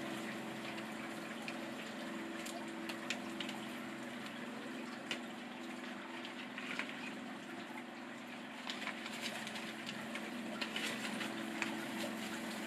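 Steady running water with a low hum under it. Light clicks and crinkles of plastic pinwheels and a plastic bag being handled come and go, more of them in the second half.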